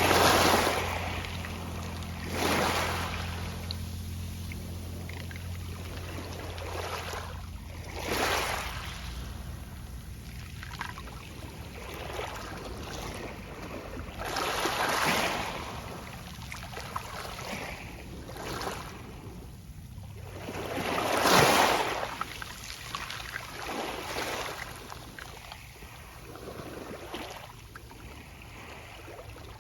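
Small sea waves breaking on a pebble beach, each surge followed by the rustle of pebbles as the water runs back, about eight waves at uneven spacing with the loudest about two-thirds of the way through. A low steady hum is heard for the first few seconds and then fades.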